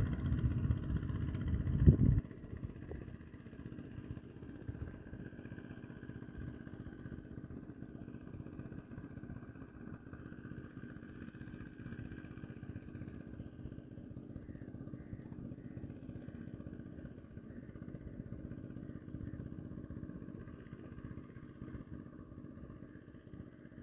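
A loud low rumble for the first two seconds, then the steady drone of a distant motor launch's engine across the water.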